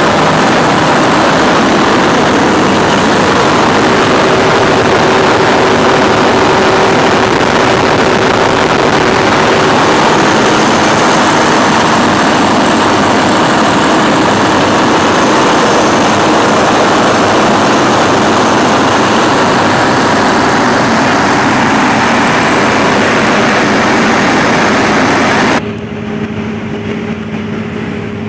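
Perkins 4006 six-cylinder diesel generator engine running steadily and loudly, heard up close. Near the end the engine noise cuts off abruptly to a much quieter background.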